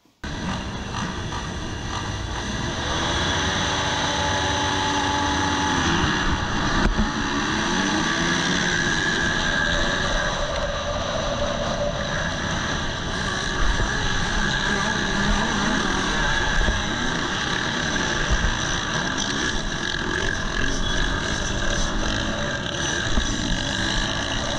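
A pack of motocross bikes revving hard in the first corners after the start. They are heard from an onboard camera on a 2018 KTM SX-F 250 four-stroke single, with several engines rising and falling in pitch at once.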